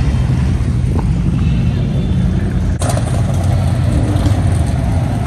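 Loud, steady low rumble of car engines and exhausts, with one sharp click nearly three seconds in.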